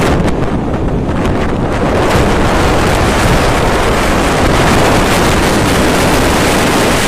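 Strong wind buffeting the microphone on a ferry at sea, a loud steady rush that swells about two seconds in and then holds.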